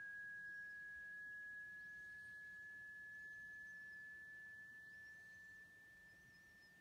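A pure sine test tone from earphones, near 1650 Hz and gliding very slowly upward, is a frequency sweep used to measure the Helmholtz resonance of small glass bottles, here passing the resonance found around 1650 Hz. It grows quieter about five and a half seconds in.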